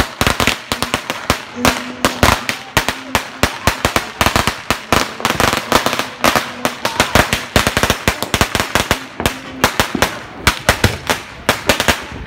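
Firecrackers and fireworks going off nonstop: dense, overlapping strings of sharp bangs and pops, some near and loud, others farther off.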